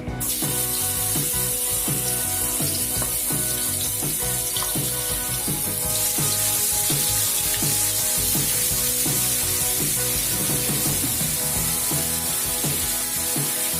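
River fish frying in hot oil: a steady sizzle that starts suddenly and grows stronger about six seconds in. Background music plays underneath.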